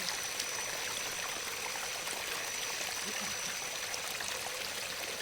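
Water of a small waterfall running over rocks, a steady even rushing and trickling, with a faint thin high whine held throughout.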